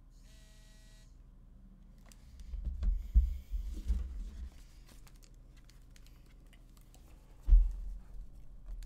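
Handling noise from a PinePhone Pro in its keyboard case being moved about and picked up: a brief buzz near the start, a cluster of dull thumps and rubbing about three seconds in, and one loud thump near the end.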